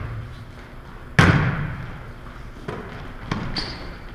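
Volleyball being struck by players' hands and arms during a rally: one loud hit about a second in, then a couple of lighter touches, each ringing on in the echoing gym.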